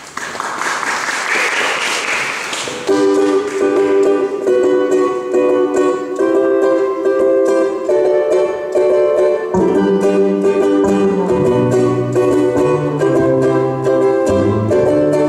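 Audience applause for about the first three seconds. Then a ukulele band starts an upbeat song: strummed ukuleles play a bouncy chord rhythm, and a ukulele bass joins with a low bass line about ten seconds in.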